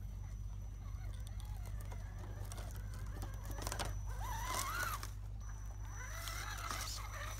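Electric motor and geared drivetrain of a scale RC crawler (Axial Jeep Rubicon) whining as it climbs over leaf litter, the pitch rising and falling with the throttle and strongest about four to five seconds in.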